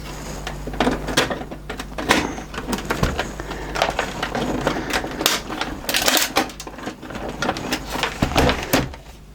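Irregular clicks, taps and rattles of hands handling and fitting parts of a VCR/DVD combo's case during reassembly, with a faint low hum underneath.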